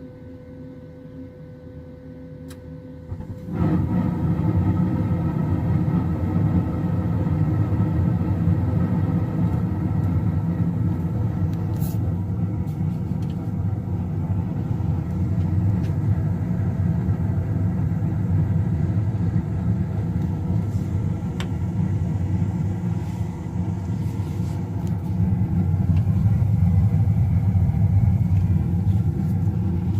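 Carrier Performance 96 two-stage gas furnace starting up: a faint steady hum, then about three and a half seconds in the burners ignite with a sudden jump to a loud, steady low rumble of burner flame, before the circulating blower has come on.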